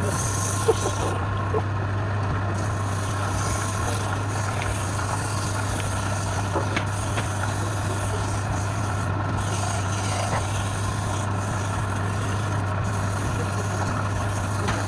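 Wood lathe motor running steadily with a constant low hum and a few faint ticks.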